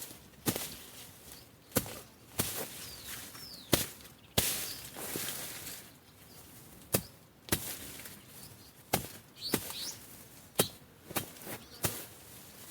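Panga (machete) chopping through vegetation: a run of sharp, irregular strikes about once a second, some with a brief rustle of leaves after the cut.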